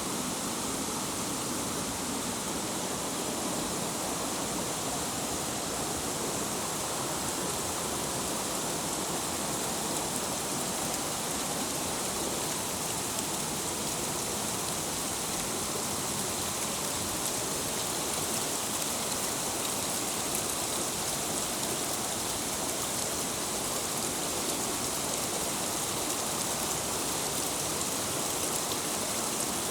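Waterfall: a steady rush of falling water that does not change over the whole stretch.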